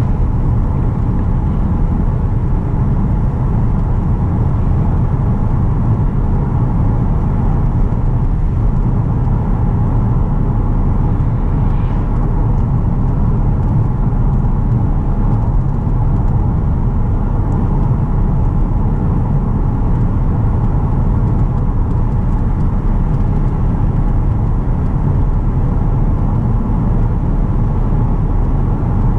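In-cabin sound of a Mercedes-Benz E320 CDI estate cruising steadily at highway speed: a steady low drone of its 3.0-litre V6 diesel, tyres on the road and wind, with no gear changes or acceleration.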